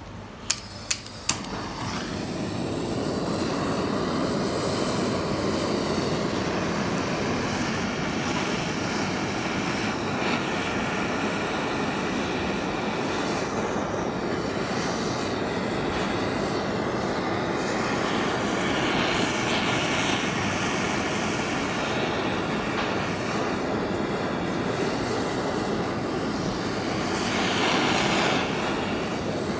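Handheld butane kitchen blowtorch: three sharp clicks as it is lit about a second in, then the flame running as a steady hiss while it chars the cut face of a halved lemon.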